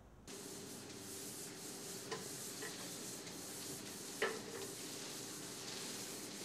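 Paint roller rolling paint onto a wall: a steady rasping rub, with a few light knocks, the sharpest about four seconds in.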